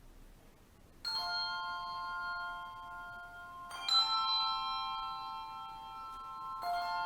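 Handbells ringing slow chords: one struck about a second in, another about three seconds later and a third near the end, each ringing on under the next.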